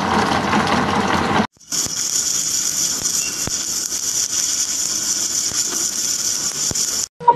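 Submerged arc welding tractor running along a seam on steel plate, the arc buried under granular flux fed from its hopper: a steady mechanical hum with a constant high hiss. Before it, for about the first second and a half, a roller egg-peeling machine runs with water, then the sound drops out briefly.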